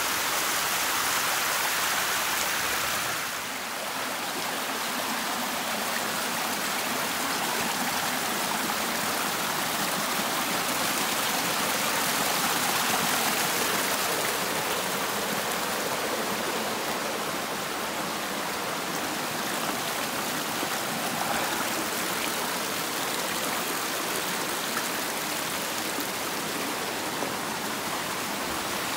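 Shallow mountain stream running over rocks in a narrow gorge: a steady rush of water, with a brief dip about three seconds in.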